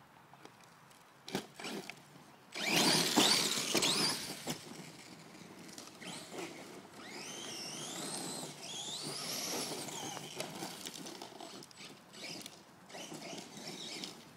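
Electric RC monster truck driving hard over rough ground: a loud rush of motor whine and tyre noise about three seconds in. Then the motor's high whine rises and falls in pitch with the throttle for a few seconds.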